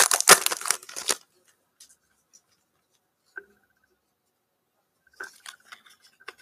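Trading-card pack wrapper being torn open and crinkled for about a second, then near quiet with a faint tick. Light handling of the cards follows near the end.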